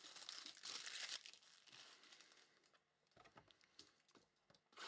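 Faint crinkling and tearing of plastic shrink wrap on a box of trading cards as it is unwrapped, loudest in the first second or so, then scattered soft crackles.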